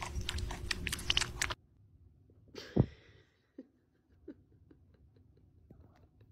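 Cats lapping milk from a bowl: a fast run of wet clicks that stops abruptly about one and a half seconds in. After that it is much quieter, with a single sharp thump about a second later and a few faint soft taps.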